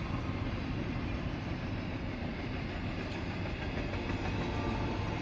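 Freight train cars, covered hoppers and tank cars, rolling steadily past on the rails, heard from inside a car through the windshield.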